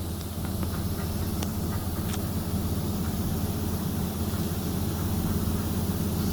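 Steady low machinery hum with an even hiss, and a few light clicks in the first two seconds.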